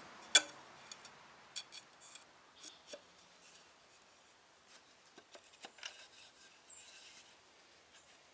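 Wooden bow saw frame pieces knocking and clicking against each other as they are handled and fitted together: one sharp knock about half a second in, then scattered lighter clicks and taps.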